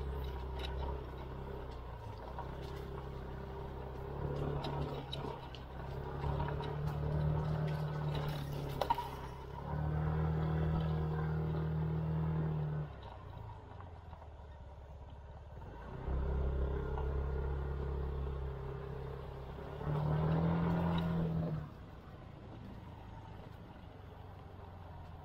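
SYM KRN scooter's engine under way on a rough trail, the throttle opened and eased off in several spells: the engine note swells for a few seconds at a time and drops back between, falling quieter near the end.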